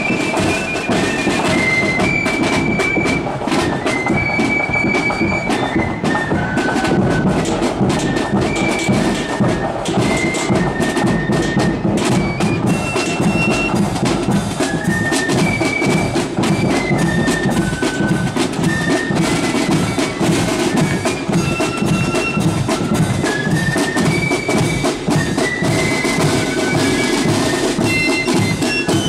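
Corps of drums playing a march as it parades: flutes carry a high stepping melody over side drums and bass drum.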